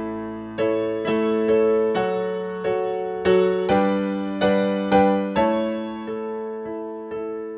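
Background keyboard music: a gentle piano-style melody over held chords, with new notes struck about twice a second, settling into one long sustained chord near the end.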